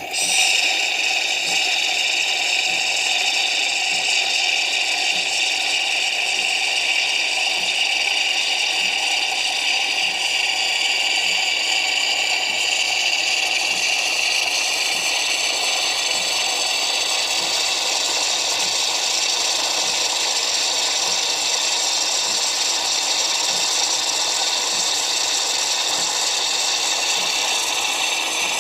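Espresso machine running: a steady mechanical noise that starts abruptly, with faint regular ticking underneath.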